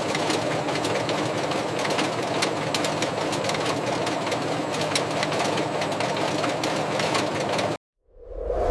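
Production-line machinery running with a steady clatter of rapid clicks, cutting off suddenly near the end; a whoosh swells in right after.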